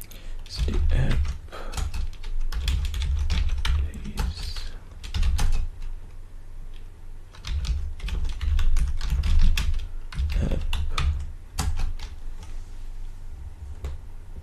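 Typing on a computer keyboard: runs of quick keystrokes broken by short pauses.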